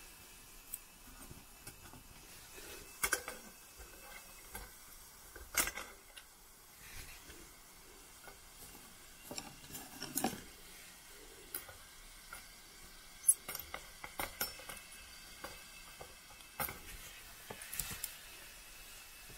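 Meat frying in a steel pan over a small wood-fired camp stove, with scattered knocks and scrapes of a spatula stirring against the pan.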